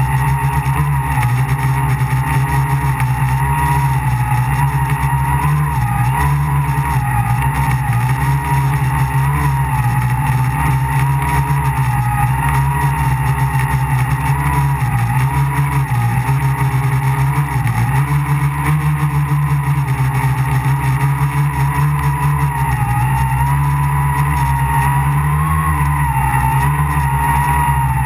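Electric motors and propellers of a tricopter running loud and steady, heard close up from on board, with a whine whose pitch wavers up and down throughout.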